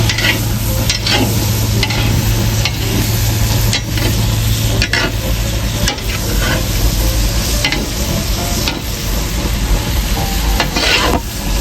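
Chopped onion sizzling in bacon and sausage grease in a large pot as it sweats down, stirred with a utensil that scrapes the pot about nine times at irregular intervals. A steady low hum runs underneath.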